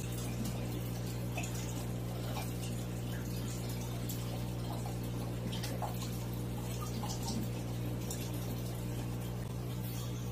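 Aquarium water bubbling and trickling over a steady low hum from the tank's pump.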